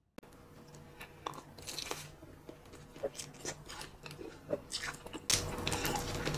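Close-miked eating of crispy-coated buffalo chicken wings: crackly crunching bites and chewing, louder and denser from about five seconds in.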